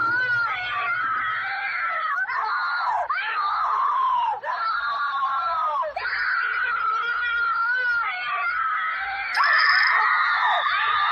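High-pitched screaming voice, wavering up and down in pitch with a few short breaks, getting louder about nine seconds in.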